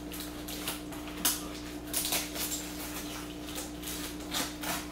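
Scattered clicks, scrapes and rustles of a fish shipping box's packaging being worked open with a kitchen knife, with one sharper knock about a second in. A steady low hum runs underneath.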